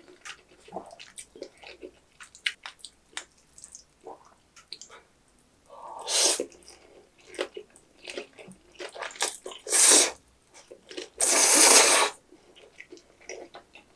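Close-miked eating sounds of jajang ramen noodles: small wet chewing clicks throughout, with loud noodle slurps about six seconds in and again around ten seconds, and a longer slurp a little after eleven seconds.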